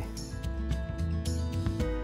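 Background music: held notes over a low bass, with light plucked note attacks; the notes change near the end.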